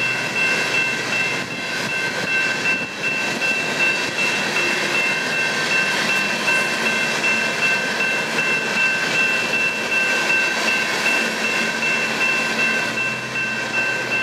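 Coal train freight cars rolling steadily past through a grade crossing: continuous wheel-on-rail noise with steady high-pitched ringing tones over it.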